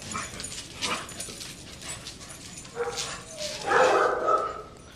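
Several dogs playing rough and barking. The loudest stretch comes about three to four and a half seconds in.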